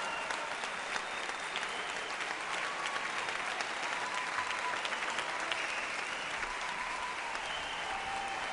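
Large concert-hall audience applauding steadily after a performance, a dense patter of many hands clapping.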